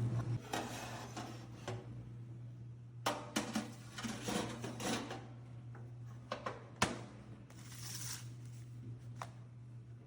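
Scattered light knocks and clicks of hard objects being handled, a few seconds apart, over a faint steady low hum.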